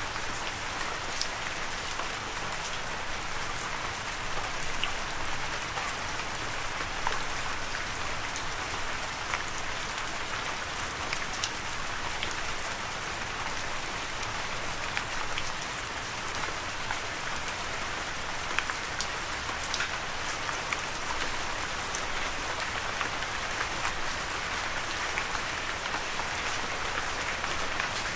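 Steady rainfall: an even hiss dotted with many small, sharp drop ticks.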